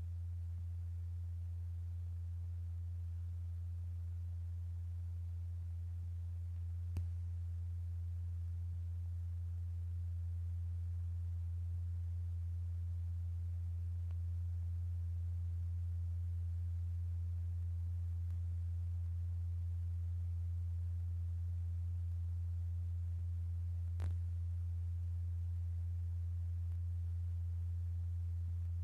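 A steady, low sine tone held at one pitch: the vibration signal driving the cymatics experiment, here exciting a molten blob of kaolin. Two faint clicks come through, one about seven seconds in and one later.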